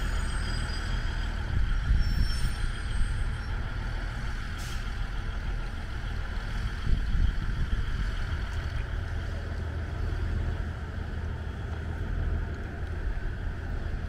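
JR KiHa 110-series diesel railcar pulling slowly into a station and coming to a stop, its engine and running gear giving a steady low rumble. Faint high squeals come about two seconds in.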